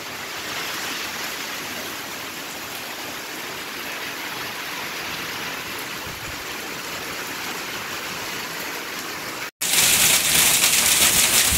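Rain falling steadily. About nine and a half seconds in there is a cut to louder, closer rain: a downpour pelting just outside a doorway.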